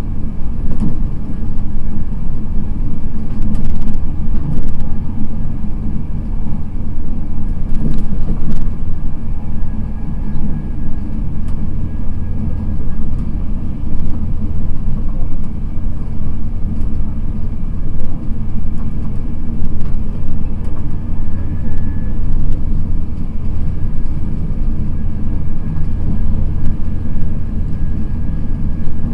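Steady low rumble inside an InterCity 225 passenger coach running at speed on an electrified main line, the sound of its wheels on the rails.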